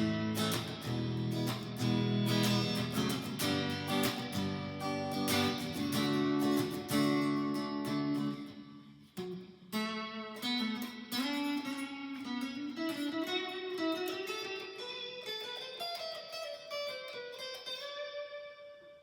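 Fender Player Stratocaster electric guitar played on its neck single-coil pickup: strummed chords for about nine seconds, a short break, then a single-note line that climbs in pitch and ends on a held note.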